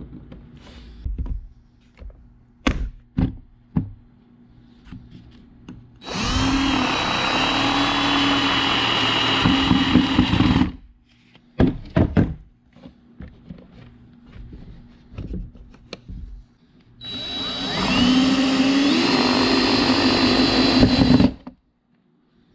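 Cordless drill driving screws into a wooden bracket in two long runs of several seconds each, the motor whine rising as it spins up and then holding steady. Before and between the runs come a few short knocks and clicks of parts being handled.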